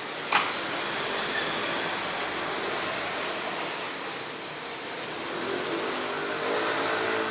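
Seibu 20000 series electric train standing at a station platform, its equipment humming steadily. One sharp click comes about a third of a second in, and the hum swells near the end.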